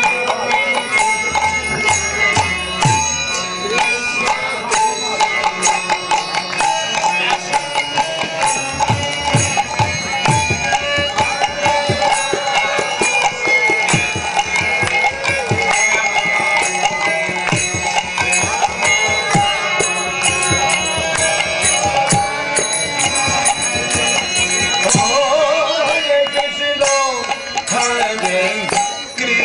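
Devotional kirtan: a man sings a chant into a microphone over fast, dense clashing of hand cymbals and a hand drum. The voice slides through a long sweeping phrase near the end.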